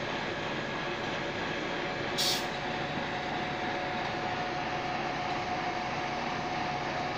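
Fire engine running steadily at the scene, a constant mechanical drone with a faint steady tone through it. A short hiss comes about two seconds in.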